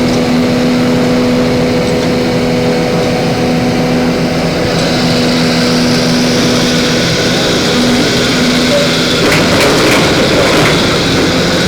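Backhoe-loader excavator's diesel engine running steadily with a constant hum.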